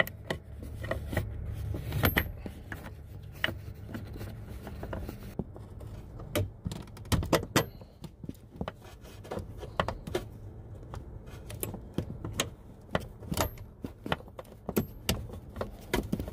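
Irregular metallic clicks and clinks as a socket holding a taped-in bolt taps and scrapes against the steel brake booster bracket while being worked toward its bolt hole.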